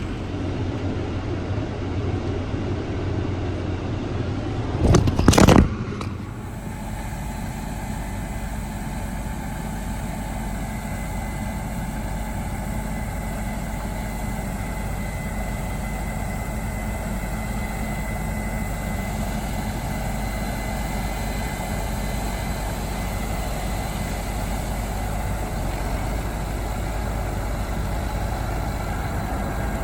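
A vehicle engine running steadily, with a brief loud knock or clatter about five seconds in.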